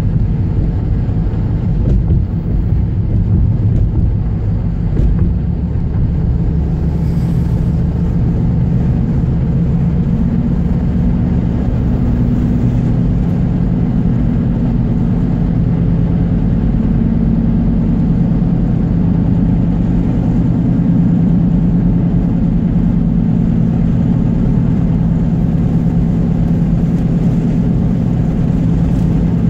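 A moving car heard from inside its cabin: a steady low rumble of road and engine noise with a constant hum.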